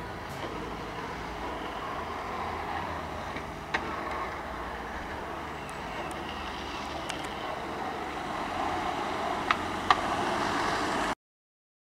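Street noise: a steady rolling rush with a few sharp clicks, the two loudest near the end. It cuts off suddenly to silence about eleven seconds in.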